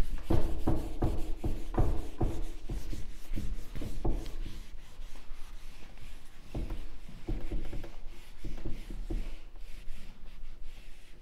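Handheld whiteboard eraser rubbing marker off a whiteboard in quick back-and-forth strokes, about three a second. The strokes come in two spells with a short break in the middle.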